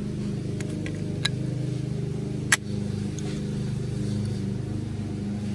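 Green plastic toy alligator pieces clicking together as they are fitted: a faint click about a second in, then a sharp, louder snap about two and a half seconds in. Under the clicks runs a steady low machine hum.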